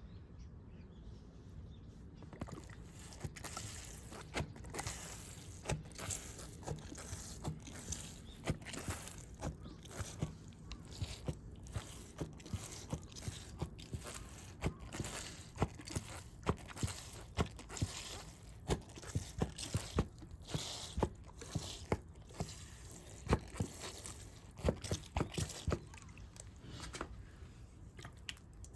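Firewood making irregular sharp cracks and knocks, several a second, over a faint hiss.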